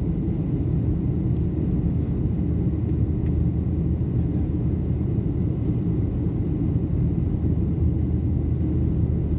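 Steady low rumble of a jet airliner's engines and rushing air, heard inside the passenger cabin as the plane climbs after takeoff.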